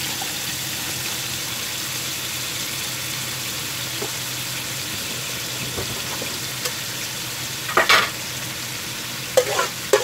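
Pork frying in a wok in a vinegar and soy sauce mixture, a steady sizzle, with a few sharp knocks near the end.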